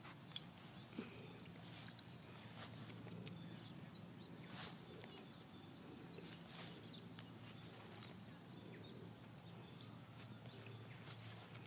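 Faint pond-side outdoor ambience: a steady low hum with scattered small clicks and brief high chirps.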